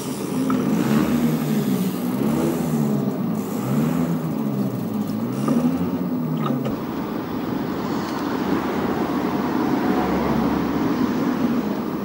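Off-road vehicle engine running on a trail, its pitch rising and falling over and over as the throttle is worked, then running steadier for the second half.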